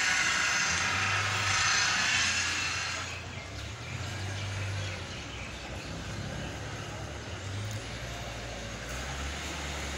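Street traffic noise: a loud hiss of a passing motor vehicle fades about three seconds in, leaving a low engine hum.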